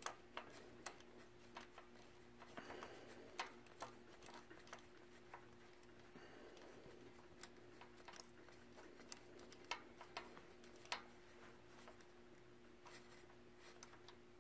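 Faint, irregular small clicks and ticks of a spark plug socket being turned by hand, threading a new spark plug into the engine's cylinder head, over a low steady hum.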